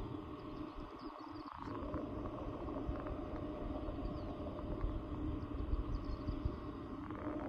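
Distant Airbus A380 jet engines on approach, heard as a steady drone with a faint hum that swells slightly after about two seconds.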